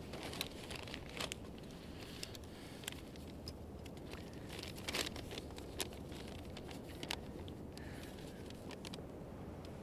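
Quiet rustling of clothing, gear and brush, with a handful of small clicks and crackles scattered through it, over a steady low background rumble.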